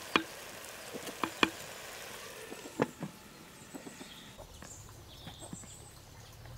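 A wooden spatula knocking against a clay cooking pot as a thick curry is stirred, then a clay lid set down on the pot with one louder knock about three seconds in. Faint bird chirps follow in the second half.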